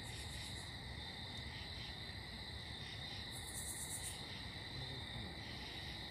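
Night insect chorus, crickets trilling steadily. A higher-pitched pulsing buzz joins briefly at the start and again for under a second about three and a half seconds in.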